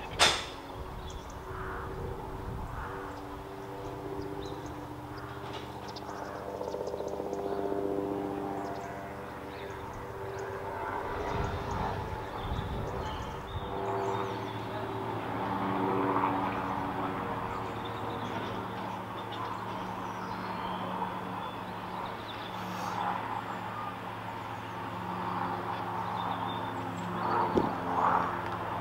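Diesel train engines running at a distance: a steady drone that swells and shifts in pitch several times. A sharp click comes right at the start.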